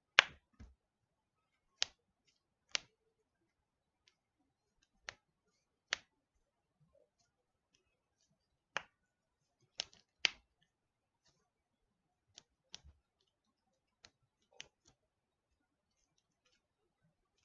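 Knuckles being cracked: about a dozen sharp, separate pops at uneven intervals, some in quick pairs, the loudest right at the start.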